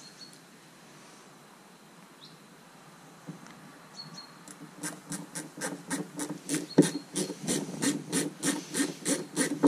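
A self-tapping screw being driven by hand with a screwdriver into a plastic tab in a van's side step, grating in short strokes about three a second as each twist cuts into the plastic. The strokes start about halfway through and grow louder; before that it is faint.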